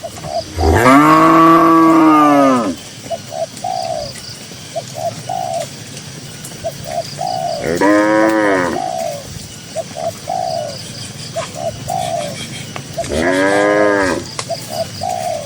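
Cow mooing three times: a long, loud moo about a second in, then two shorter moos near the middle and near the end, each rising and falling in pitch. Between the moos a bird coos repeatedly in short notes.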